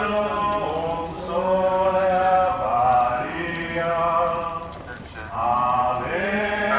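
Voices of a group of pilgrims singing a slow hymn together, in sustained, chant-like phrases.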